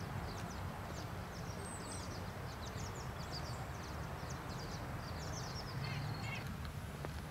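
Woodland ambience: small birds chirping in many short, high calls throughout, over a steady low rumble.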